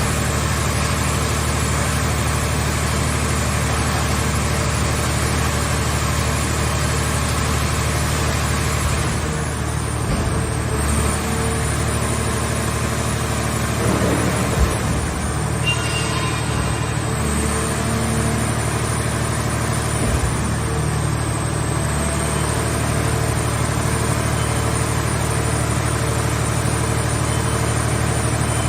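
Engine-driven hydraulic power unit of a portable scrap car baler running steadily, with a few metal knocks near the middle.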